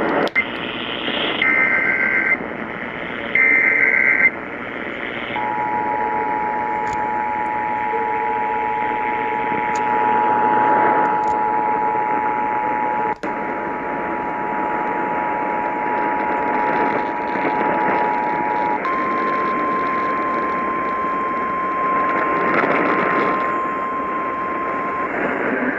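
Emergency Alert System alert tones received over a radio with steady static hiss. A few short bursts of warbling data tones (the SAME header) open it. Then comes a steady two-tone attention signal for about thirteen seconds, which gives way to a single slightly higher steady tone, the weather-radio warning alarm, for about six seconds. Together they announce a new warning about to be read.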